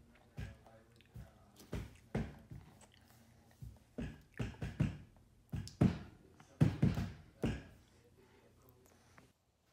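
A toddler eating cake with a spoon: a run of short, irregular taps and mouth sounds, some in quick pairs and triplets.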